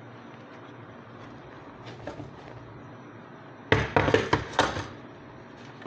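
A quick cluster of sharp clattering knocks, about a second long, starting a little past halfway, from hard parts of a vacuum cleaner being handled and set down during repair.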